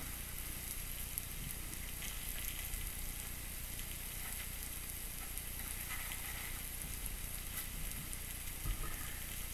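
Two marinated steaks with chopped green pepper and onion sizzling steadily on a ridged cast iron grill pan, with a few faint pops in the frying.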